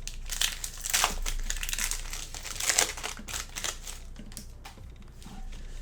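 Foil trading-card pack wrapper crinkling and tearing as it is opened, with cards handled in the hands. The crackle is loudest about a second in and again near three seconds.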